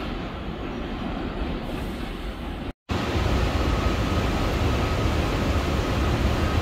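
New York City subway train noise: a steady rumble that cuts out abruptly just under three seconds in. It is followed by a louder, deeper rumble with a faint steady tone running through it.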